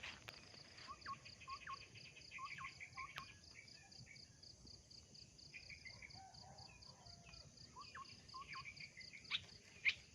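Insects chirping in a steady, rapid, even pulse, with birds giving short rising call notes, often in pairs, and a few higher chirps. A couple of sharp clicks sound near the end.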